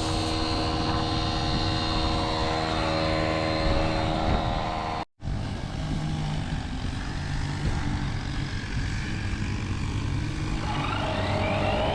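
A motor running steadily, cut off abruptly about five seconds in and followed by a lower, steady hum.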